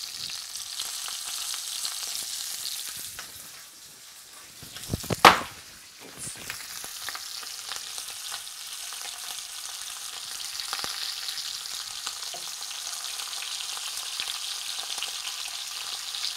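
Venison shanks frying in hot bacon fat in a cast iron Dutch oven: a steady sizzling hiss, with one loud knock about five seconds in.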